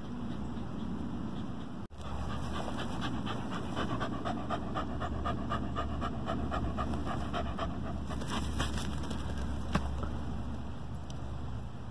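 Dog panting hard with its tongue out, in quick, rhythmic breaths that start about two seconds in and stop near the end.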